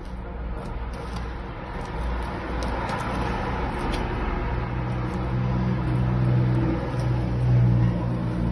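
A steady low motor hum that grows louder in the second half, with a few faint clicks.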